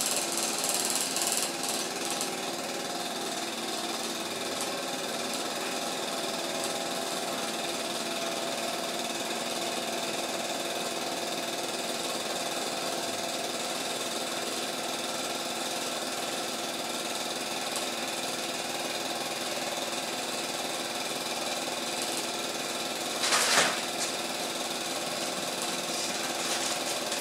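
Cine film projector running steadily, a continuous mechanical whirring clatter of its motor and film-advance mechanism. A brief louder noise cuts in about three-quarters of the way through.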